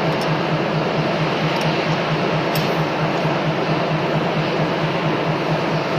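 Machinery running steadily: a loud, even mechanical noise with a low pulsing hum underneath and a few faint light clinks.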